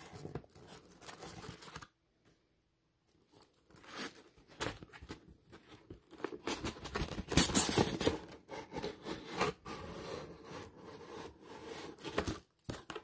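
Cardboard box and its foam and plastic packing being handled: irregular scraping, rustling and crinkling as the box is opened and the contents pulled out. There is a dead silence of a second or so about two seconds in, and the loudest rustling comes a little past halfway.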